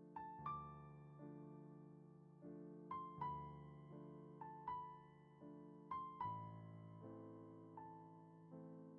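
Soft background music: gentle piano notes and chords, a melody note struck every second or so and left to ring and fade.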